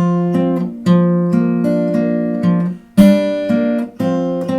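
Acoustic guitar with a capo on the third fret, fingerpicked in an arpeggio on the second, third and fourth strings, with two strings plucked together by thumb and middle finger through a C, D, G chord change. Strong plucks come about once a second, with lighter single notes between, all left to ring.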